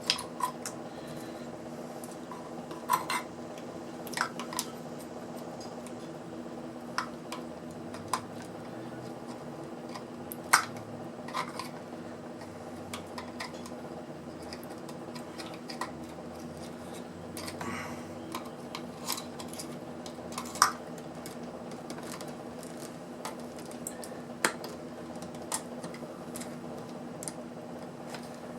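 Scattered sharp clicks and metallic clinks from hand tools and metal and plastic parts being handled while a portable power pack is taken apart, over a steady background hum.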